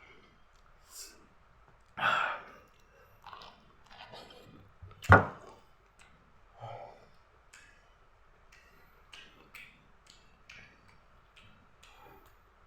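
Someone eating hot boiled corn on the cob: scattered biting and chewing sounds with small mouth clicks. A louder burst comes about two seconds in, and a sharp knock, the loudest sound, about five seconds in.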